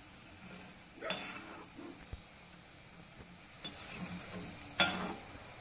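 Battered cauliflower pieces sizzling in hot oil in an iron wok, with a perforated metal skimmer scraping and knocking against the pan about a second in and most loudly near the end.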